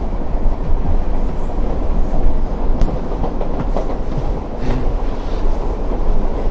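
Underground train running, heard from inside the carriage: a steady, loud rumble of wheels and car, with a few faint clicks.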